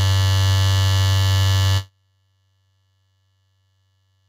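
A loud, steady electric buzz that cuts off suddenly about two seconds in, leaving only a faint low hum.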